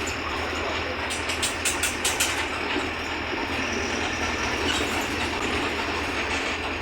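Mercedes-Benz OF-1721 bus driving with its diesel engine running steadily under a constant rumble of road and body noise. A quick run of rattling knocks comes about a second and a half in.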